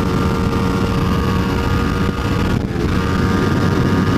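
Kawasaki Ninja 250's parallel-twin engine running at speed under the rider, with a steady engine note and a short dip about two and a half seconds in.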